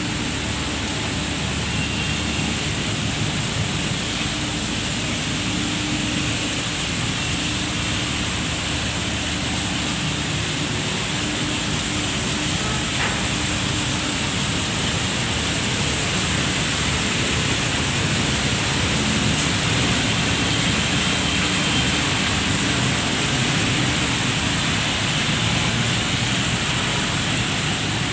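Steady rain falling, an even hiss with no breaks, with a faint low hum underneath.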